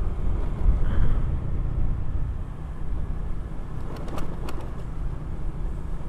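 2013 Honda Vario 125 FI scooter's single-cylinder engine running at riding speed, heard as a steady low rumble, with a few short clicks about four seconds in.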